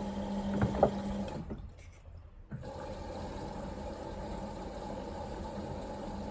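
Beko washing machine running a wash cycle, with water rushing and sloshing in the drum over a steady machine hum and a few small clicks. A steady hum stops a little over a second in, and the sound drops out briefly before the running resumes.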